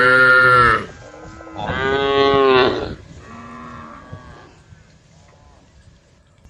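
Cows mooing: two loud, long moos, the second about a second and a half after the first, then fainter moos further off.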